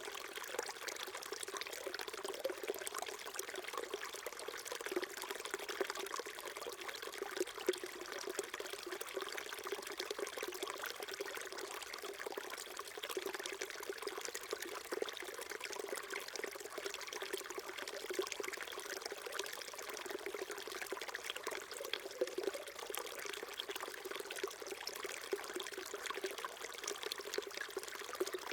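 Small mountain stream trickling and splashing over rocks, steady and unbroken.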